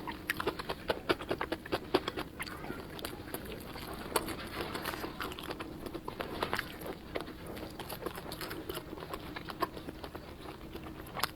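Close-miked chewing and crunching of fried food: a dense, irregular run of small crisp clicks and smacks with mouth sounds.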